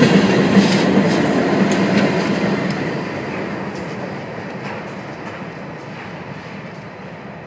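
Diesel-hauled freight train passing close by: locomotive engine and the rumble of wheels on the rails, loud at first and then fading steadily over the last few seconds, with scattered light clicks.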